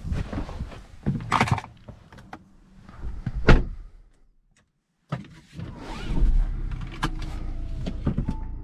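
Someone getting into a car: rustling and knocks, then a loud car door slam about three and a half seconds in. After a brief dropout, the Audi A6's 2.0 TDI four-cylinder diesel starts, swelling briefly before settling into a steady idle.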